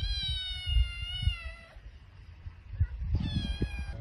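A cat meowing twice: one long, drawn-out meow, then a shorter one about three seconds in.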